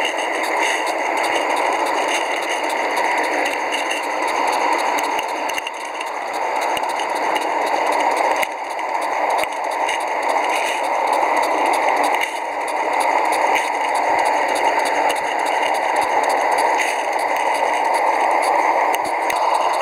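Scratchbuilt gas-fired live steam geared locomotive, a small garden-gauge model, running: a steady hiss from its burner and steam, with a light metallic rattle and clinking from its gearing and motion.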